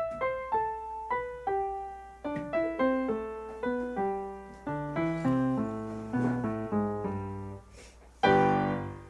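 Solo piano music: a gentle melody of single struck notes, each fading away, with a lower line joining about two seconds in and a loud full chord struck near the end.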